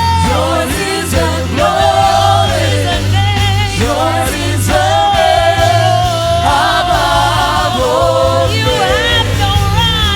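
Live gospel worship music: a group of singers with a backing band, a held melody over a steady bass line.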